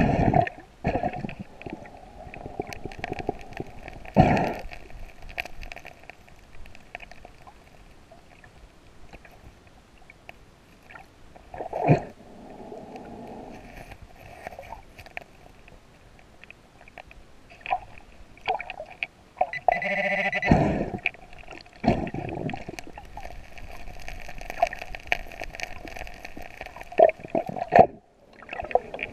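Underwater metal detector's audio signal heard beneath the water: a steady humming tone with louder warbling target signals at the very start and again about 20 seconds in. Several short rushing bursts of the diver's regulator bubbles break in, among them at about 4 and 12 seconds.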